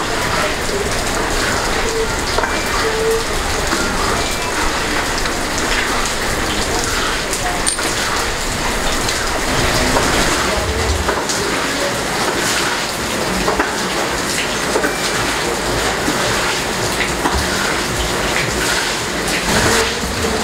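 Steady rain, an even hiss without a break.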